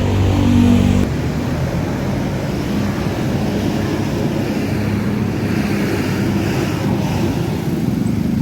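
Tour bus engine running steadily, with wind noise on the microphone. A louder first second breaks off abruptly about a second in.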